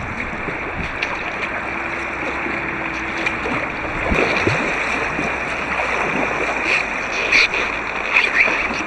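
River water rushing and splashing around an inflatable kayak, heard muffled through a waterproof camera housing, with a few sharper splashes near the end.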